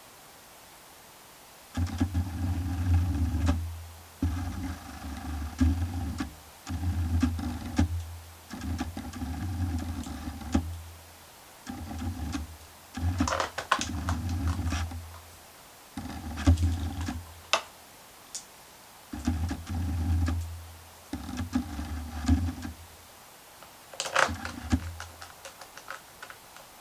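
Small electric screwdriver running in short bursts of a second or two, about ten times, driving the screws into a laptop's base panel, with a few sharp clicks and taps in between.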